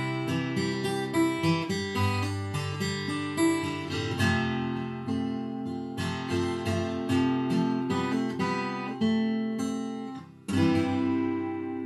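Steel-string acoustic guitar played solo, a run of strummed and picked chords. Just past ten seconds the playing breaks off for a moment, then one last strummed chord is struck and left to ring out.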